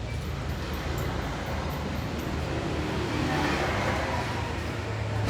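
Steady low rumble of traffic or a vehicle engine, swelling a little about three to four seconds in.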